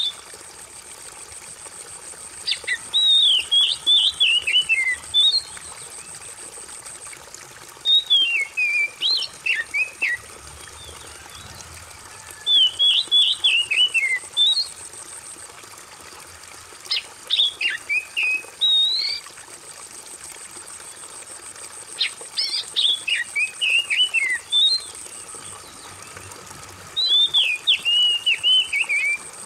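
Oriental magpie-robin (kacer) singing six whistled phrases of two to three seconds each, about one every five seconds, over a steady trickle of running water.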